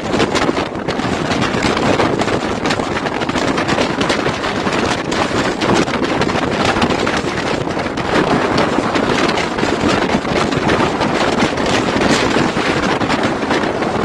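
Storm-force wind buffeting the microphone over the steady rush of waves breaking across a flooded seafront road.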